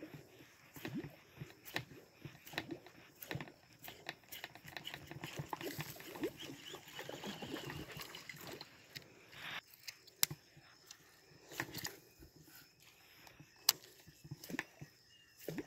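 Baitcasting reel and rod working a Yara Shotgun 90 popper: a string of short clicks and pops about once a second. A denser whirring hiss of line being reeled in stops abruptly about ten seconds in.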